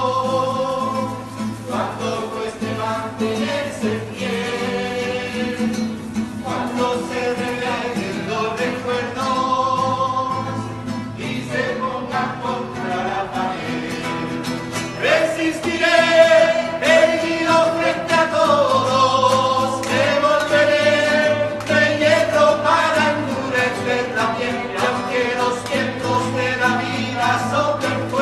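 A song with singing over acoustic guitar accompaniment.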